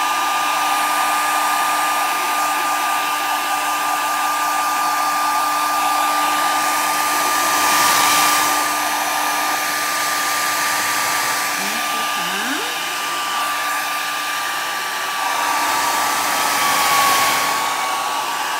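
Handheld hair dryer running, a steady whine over the rush of air, growing louder about eight seconds in and again near the end as it is moved closer. It is being used to speed-dry a wet coat of paint.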